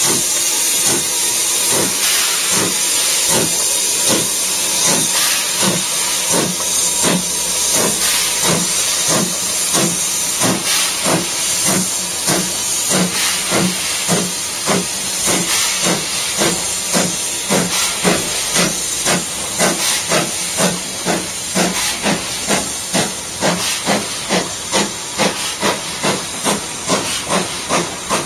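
BR Standard Class 2MT 2-6-0 steam locomotive No. 78019 working a train, its exhaust beating regularly about twice a second under a loud hiss of steam. Over the second half the hiss fades and the chuffs stand out more sharply.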